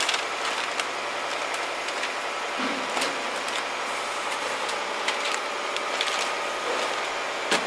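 Plastic masking film crinkling and rustling as it is pulled off a freshly primed car body, many small crackles over a steady noise.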